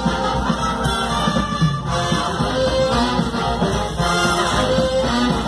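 Live big band playing: saxophones and brass over electric guitar, bass and keyboard.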